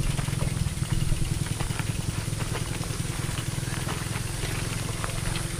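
An engine running steadily with a low hum that fades slightly, with scattered light clicks.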